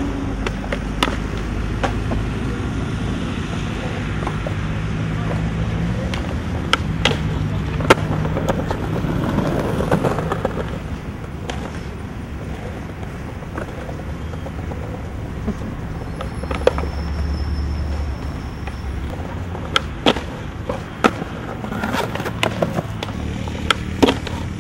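Skateboard wheels rolling on concrete and asphalt with a steady rumble, broken by sharp cracks of the board popping and landing. Near the end, a cluster of impacts as the board hits a concrete ledge.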